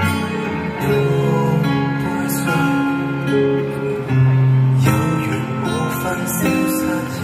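Music with a strummed acoustic guitar.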